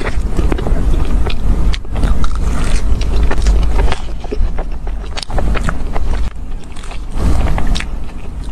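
Close-miked chewing of a soft cream-filled pastry: a run of wet mouth clicks and smacks over a steady low rumble.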